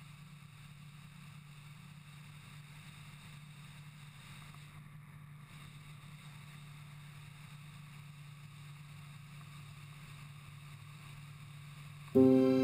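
Light aircraft engine and propeller heard as a steady, low, even drone. Music starts suddenly just before the end.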